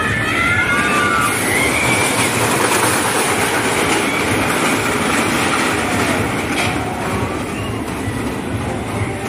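Jet Star steel roller coaster car running along its track: a steady rumble and clatter of wheels on the steel rails, with a few high squeals in the first two seconds.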